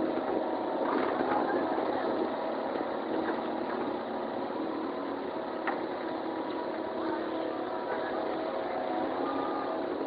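Engine running steadily, a constant drone with a few faint knocks.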